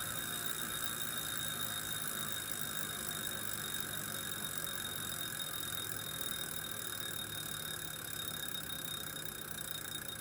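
Wahoo Kickr Core direct-drive smart bike trainer running as it is pedalled, a steady high whine over a low hum. The owner is recording it for a clicking noise it makes under load.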